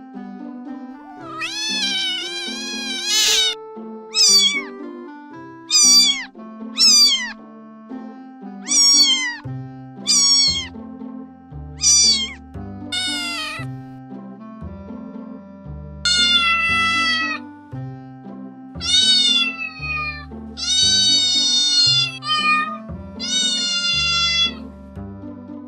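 Domestic cat meowing over and over, about a dozen meows a second or two apart, some short and high, others longer and falling in pitch. Background music plays under them, with a low bass line joining about halfway through.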